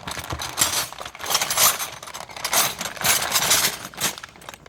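Set of metal wrenches clinking and rattling against each other as they are handled, in a run of irregular knocks.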